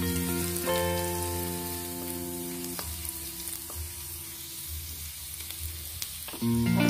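Minced garlic sizzling in hot cooking oil in a wok, stirred with a wooden spatula. Soft background music of held notes plays along, fades out about halfway, and comes back louder near the end.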